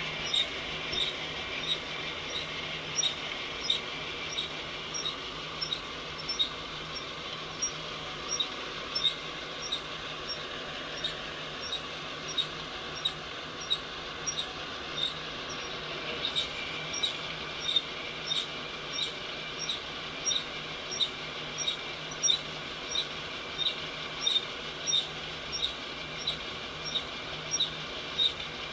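Master Appliance heat gun blowing a steady rush of hot air up into a stainless flour-sifter roasting drum, with a low motor hum. The drum, turned by a cordless right-angle drill, gives a short squeaky tick about twice a second as it rotates.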